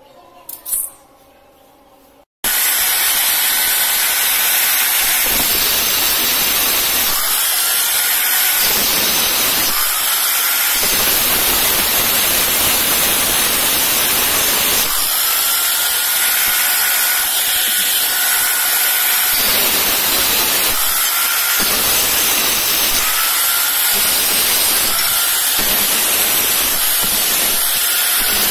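Angle grinder with a thin cutting disc cutting through a square steel tube: a loud, steady grinding hiss that starts suddenly a couple of seconds in. Its faint whine rises briefly several times as the disc bites and eases.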